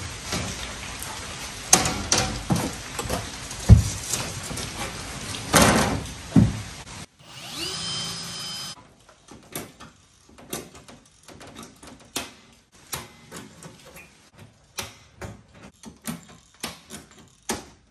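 Work noise with a few knocks, then a cordless drill whining for about two seconds, then a string of sharp snaps, one or two a second, as aluminum pop rivets are set with a long-handled riveter to fasten an aluminum lid to a boat bench.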